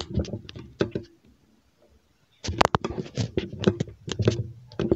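A woman talking in short phrases, with a pause of about a second near the middle.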